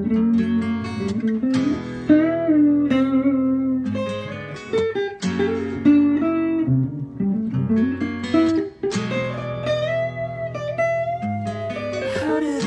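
Guitar playing a slow melodic lead of held notes with string bends and vibrato over lower sustained notes.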